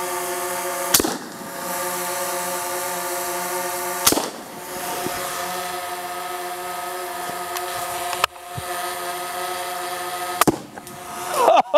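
Four suppressed shots from an LWRC 6.8 AR-type rifle, roughly three seconds apart, striking paint cans. Under them runs a quadcopter drone's steady propeller hum.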